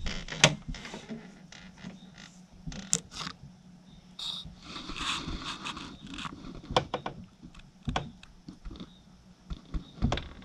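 A raccoon eating oatmeal from a plastic bowl: irregular clicks and short scraping sounds as it feeds.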